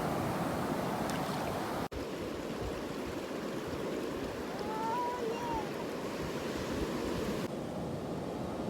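Sea waves washing in the shallows: a steady rush of water noise that cuts out for an instant about two seconds in.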